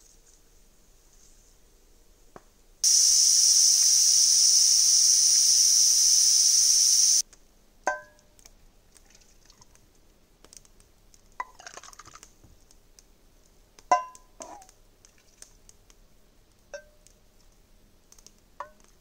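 MenGrills campfire pressure cooker venting steam in a loud steady hiss for about four seconds, starting and stopping abruptly: pressure being let off before the lid is opened. Then a stainless steel cup clinks and rings against the steel pot several times as stew is ladled out.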